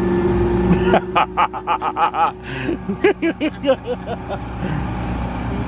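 Outboard motor of a Sun Tracker pontoon boat running steadily under throttle. From about one to four seconds in, a person laughs in quick repeated bursts over it.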